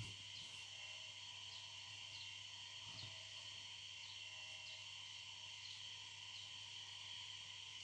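Quiet room tone: a steady high-pitched whine over a low hum, with faint soft snips of small scissors cutting through thin cotton fabric.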